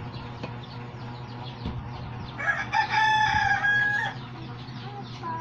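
A rooster crowing once, about two and a half seconds in, one long call of about a second and a half.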